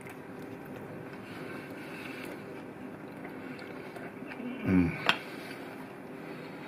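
Steady low room hum. About four and a half seconds in, a man makes a short vocal sound that falls in pitch, and right after it a fork gives one sharp click against the plate.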